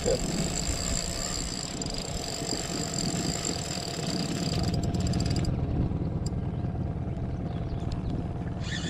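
Boat's outboard motor running steadily.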